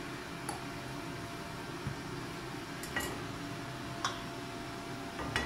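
Steady low kitchen hum with four light clicks and taps as a plastic oil bottle and utensils are handled at a gas stove.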